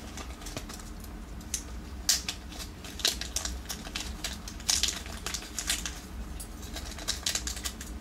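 Small metal tools being handled and set down on a bench: irregular light clicks and clinks.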